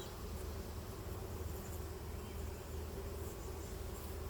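Swarm of honeybees buzzing around an opened hive, a steady, unbroken hum.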